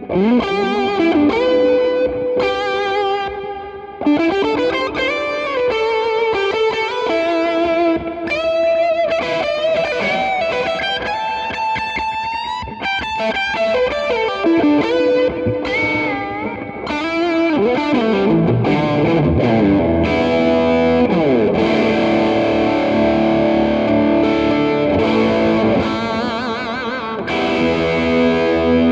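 Electric guitar through a Donner Morpher distortion pedal on its natural setting, with a little delay, played as a lead tone: single-note runs with string bends and vibrato, moving into held chords about two-thirds of the way through.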